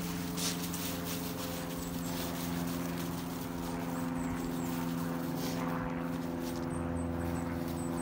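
A steady low mechanical hum holds one unchanging pitch throughout, with scattered clicks early on and faint high chirps in the second half.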